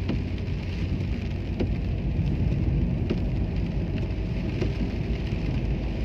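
Heavy rain falling on a car's roof and windscreen, heard from inside the cabin while driving, over steady low engine and road noise, with scattered light ticks of drops.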